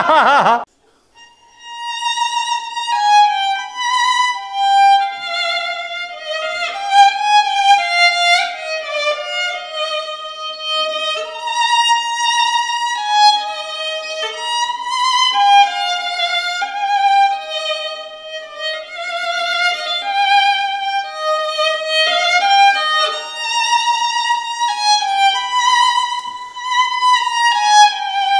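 Solo violin playing a fast melody sight-read from printed music, starting about a second in and moving note to note without a break.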